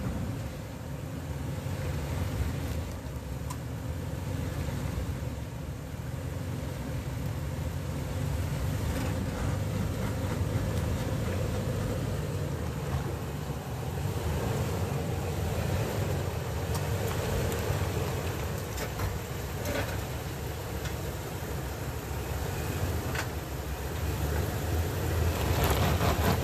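Toyota 4Runner's 4.0-litre V6 running at low revs as the SUV crawls over a dirt trail in four-wheel-drive low, with scattered short clicks. It grows louder near the end as the vehicle comes up close.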